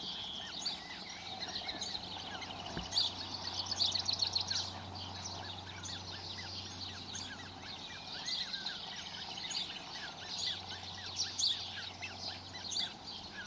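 Australasian crested grebe chicks giving high-pitched begging peeps, over and over, with a quick run of calls about three to four seconds in.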